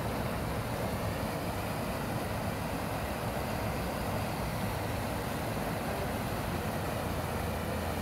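Creek water flowing: a steady, even rush with a low rumble beneath.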